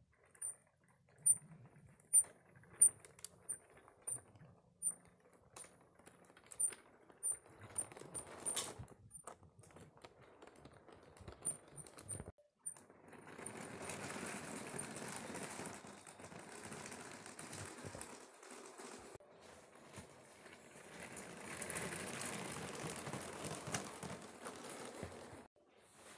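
Model train on plastic Lego track: a regular run of small clicks with a few sharper knocks, then the motorised Lego steam locomotive running past close by, its motor and wheels making a steady whirring rattle that stops near the end.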